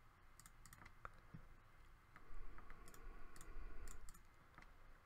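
Computer mouse clicking, a scattering of short, sharp clicks. A low rumble runs underneath for a couple of seconds around the middle.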